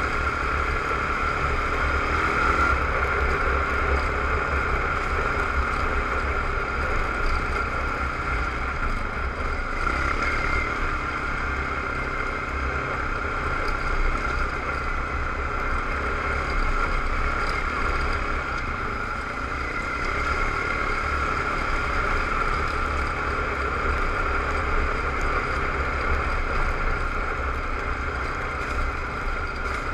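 ATV engine running steadily at a cruising pace while the quad rides a dirt trail, with low wind rumble on the microphone.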